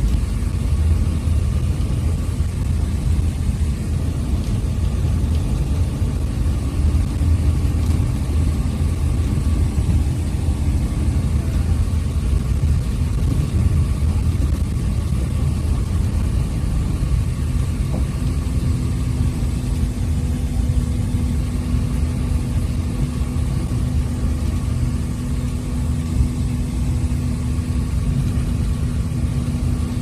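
Bus engine and road noise heard from inside the moving bus: a steady low rumble, with a steady engine hum coming in about two-thirds of the way through.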